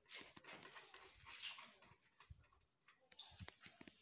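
Near silence: faint hiss with a few small clicks, the sharpest about three seconds in.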